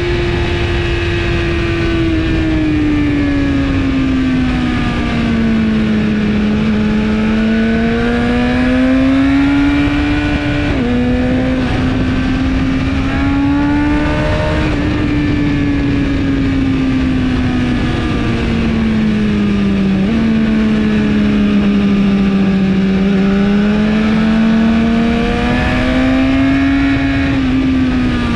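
2017 BMW S1000RR inline-four engine through an Akrapovic exhaust, heard on board at track speed. Its pitch rises and falls, with sudden steps about eleven and twenty seconds in, over a constant rush of wind on the microphone.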